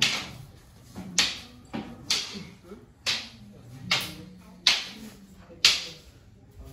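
Long wooden fighting staffs clashing in kalaripayattu staff sparring: about eight sharp wooden cracks, roughly one a second with an irregular beat, as the strikes are blocked.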